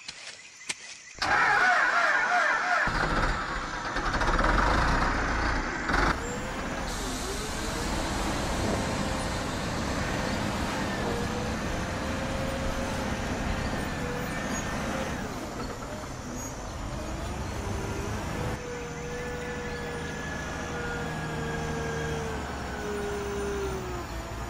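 A heavy vehicle's engine running steadily with a low rumble and a wavering whine above it, starting about a second in.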